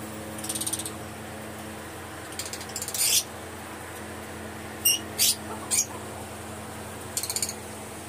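Lovebirds in a colony room chattering and calling: several short, fast ratchet-like trills and a few sharp, high squawks near the middle, over a steady low hum.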